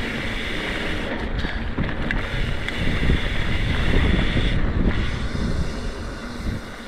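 Wind buffeting the microphone over the rumble of a mountain bike rolling fast along a dirt trail, with a few light rattles. It grows louder about halfway through, then eases near the end.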